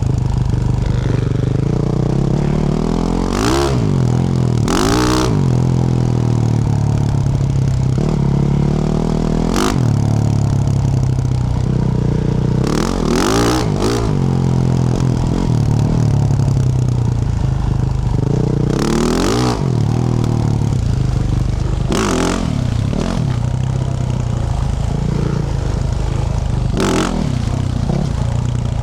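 Yamaha YZ450F's single-cylinder four-stroke engine through a Yoshimura RS-12 exhaust, under way and revving up and down repeatedly on the throttle. Several short clattering noises cut in over the engine.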